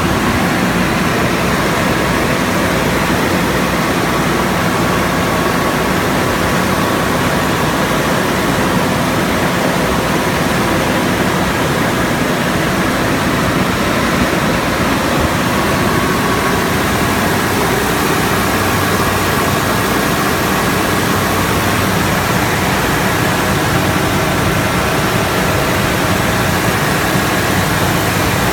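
A Trielectron 20-ton aircraft ground air-conditioning unit running steadily: a loud, even rush of air over a low hum, with a faint steady whine.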